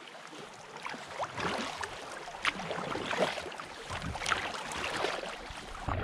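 River water lapping and splashing against a sea kayak's hull as it moves with the current, with many small irregular splashes.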